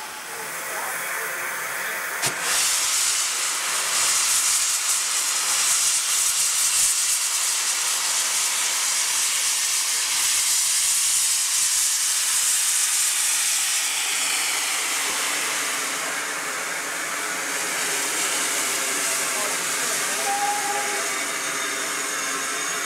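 Steam locomotive venting steam: a loud, steady hiss that starts suddenly about two seconds in and eases a little in the second half.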